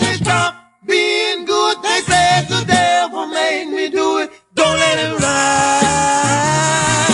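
Gospel vocal group singing in close harmony. The music stops briefly about half a second in, and the voices carry on largely unaccompanied. After a second short break about four and a half seconds in, the fuller backing returns under a long held chord.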